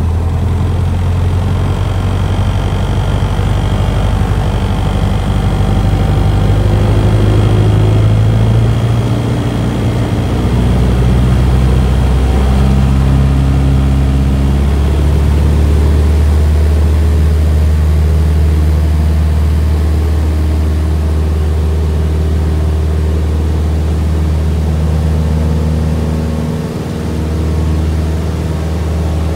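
Cessna 172's piston engine and propeller heard from inside the cabin, running at takeoff power during the takeoff roll. It is a loud, steady low drone whose pitch shifts about a third of the way in.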